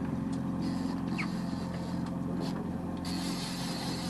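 Boat motor idling steadily, with a few faint mechanical clicks over it. A faint high hiss joins about three seconds in.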